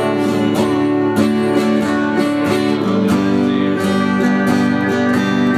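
Acoustic guitar strummed in a steady rhythm, changing chord about three seconds in.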